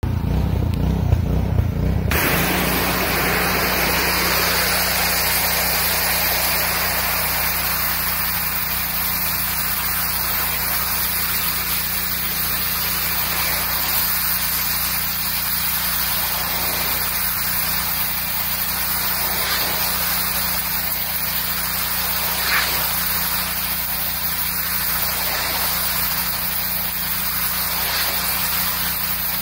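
Pressure washer running with a steady low hum; about two seconds in its high-pressure spray starts hissing against a vinyl fence and keeps on steadily, swelling and easing a little as the jet moves.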